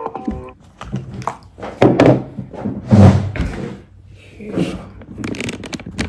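Irregular thumps and knocks of objects being handled or set down, the loudest about two and three seconds in.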